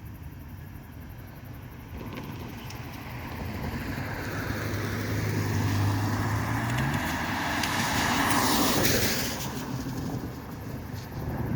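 A road vehicle passing by: engine and tyre noise swell for several seconds, peak about nine seconds in, then fade away.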